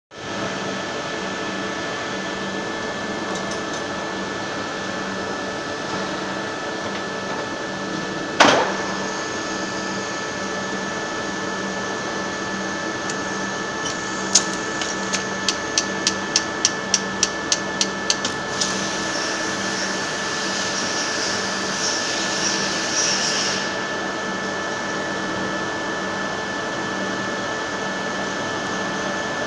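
GF-2171 CNC milling machine running through its work cycle with a steady hum. A single sharp knock comes early on, then a quick run of about a dozen evenly spaced clicks, then a high hiss for about five seconds before the steady hum carries on.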